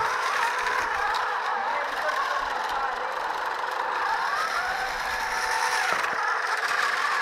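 Hacked XU1 drill motor and its gearbox running steadily on a PIC-controlled robot, a continuous mechanical whirr whose pitch wavers slightly.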